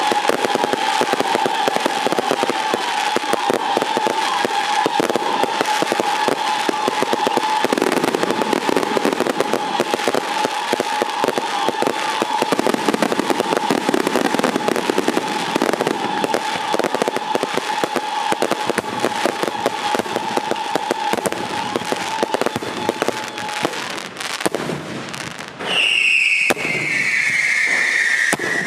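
Colored-smoke fireworks and firecrackers going off in a dense, rapid crackle of pops, with a steady high whistle running over it for most of the time. Near the end the crackle thins briefly, then a whistle falls in pitch.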